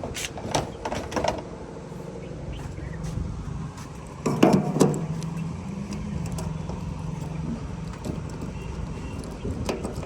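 A vehicle engine running steadily, with a loud clunk about four seconds in and a few clicks near the start.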